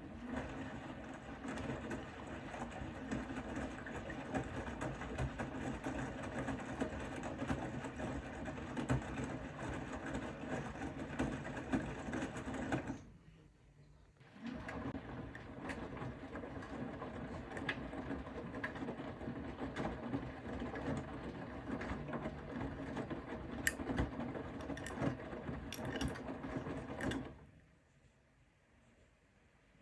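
Bosch Serie 4 (WAK20260TR) washing machine drum tumbling in the wash phase: the motor runs with a steady hum for about thirteen seconds, stops briefly, then runs again about as long as the drum turns the other way, with a few sharp clicks in the second run, and stops near the end.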